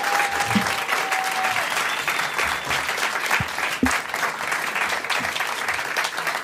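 Audience applauding, with a long whistle held over the clapping for the first second and a half.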